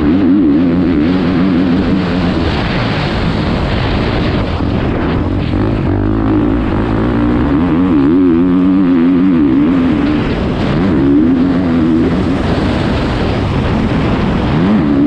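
Motocross bike engine ridden hard, its revs rising and falling again and again with the throttle, heard up close from an onboard camera.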